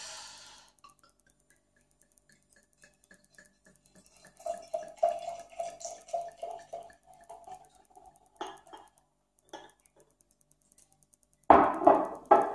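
Homebrewed Belgian ale poured from a glass bottle into a stemmed glass, glugging rhythmically from the bottle neck for about three seconds. A couple of small clicks follow, then two loud knocks near the end as the bottle is set down on the table.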